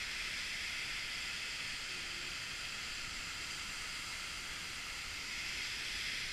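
Steady rushing hiss of the Seljalandsfoss waterfall pouring, even and unbroken.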